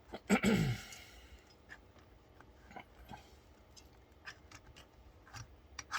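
Hands fitting a stock AMD CPU cooler onto a motherboard: a louder scrape with a downward-sliding creak about half a second in, then scattered light clicks and rubbing of plastic and metal parts.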